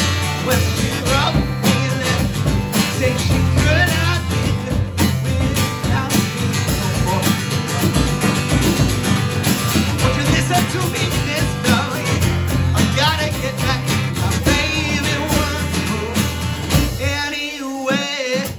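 Live acoustic duo: a strummed acoustic guitar and a male lead vocal, with a drummer playing snare drum, bass drum and cymbal. Near the end the low end drops away briefly while the singer holds a wavering note.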